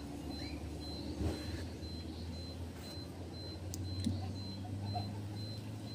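Low, steady hum of a running engine or motor that grows a little louder about two-thirds of the way through. Over it, a faint high-pitched beep repeats a few times a second, with a couple of soft clicks.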